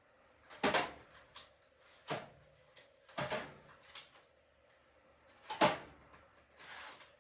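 Hard tool parts being handled and set down: a series of sharp clacks and knocks a second or so apart, with a brief rustle near the end.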